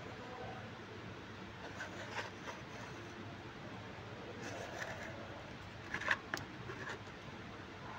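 Light clicks and taps of a plastic residual current circuit breaker's housing as it is handled and turned over on a hard surface, with a short, louder cluster of clicks about six seconds in.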